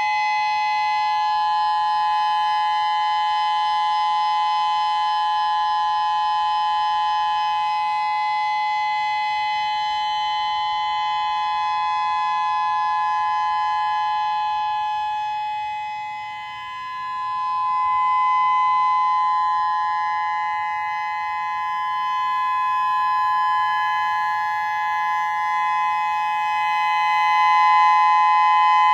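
Whelen WPS-3000 electronic warning siren sounding a steady two-note alert tone, the two pitches held together without rising or falling. About halfway through the loudness dips briefly and then swells back.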